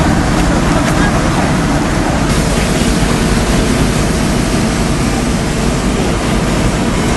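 Steady loud rushing noise of wind on the microphone over outdoor street background, with no distinct events.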